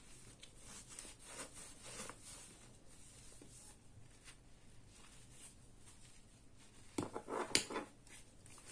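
A cloth rubbing and wiping a brass faucet by hand, with faint scattered rustling. It gets louder about seven seconds in: a short spell of harder rubbing with a few sharp knocks.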